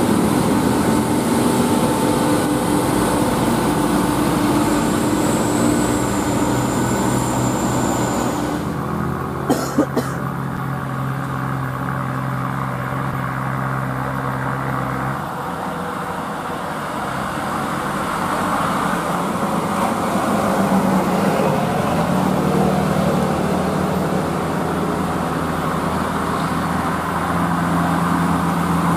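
Heavy diesel trucks climbing a steep grade under load: a Hino truck's engine runs hard as it goes by, then after a break with two sharp clicks about nine to ten seconds in, a loaded Mitsubishi Fuso Fighter's diesel engine labours up the hill, its pitch rising about twenty seconds in.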